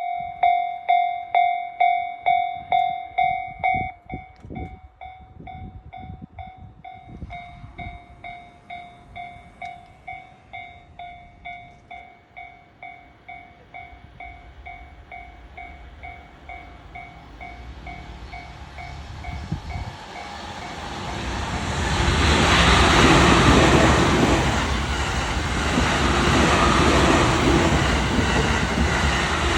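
Japanese level-crossing alarm ringing its 'kan-kan' ding about twice a second, loud for the first few seconds and then quieter. In the second half a 15-car Tokaido Line electric train of coupled E233 and E231 series units approaches and rushes past, its running and wheel noise swamping the bell.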